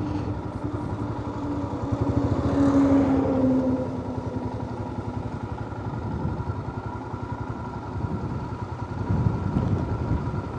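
Royal Enfield Himalayan motorcycle being ridden, its engine running with a fast, even low pulsing and wind noise. Between about two and four seconds in, the sound swells, with a slightly falling tone, then eases back.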